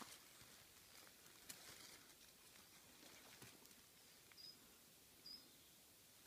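Near silence outdoors, with faint rustling and a few light ticks. Twice in the second half comes a short high chirp from a small bird.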